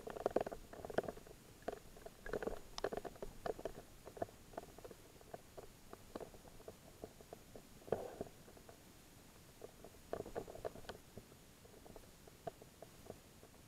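Muffled underwater sound through an action camera's waterproof housing: irregular soft clicks and knocks with short gurgling bursts, busiest in the first few seconds and again around eight and ten seconds in.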